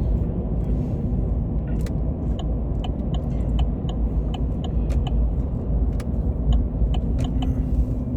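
Car cabin road noise: a steady low rumble from the moving car, with a run of light ticks from about two seconds in, two or three a second.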